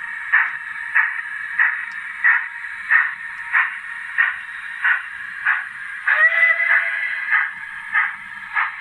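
Zimo DCC sound decoder in a model Lancashire and Yorkshire tank locomotive playing steady steam exhaust chuffs, about three every two seconds, through the model's small speaker. A short whistle toot sounds about six seconds in.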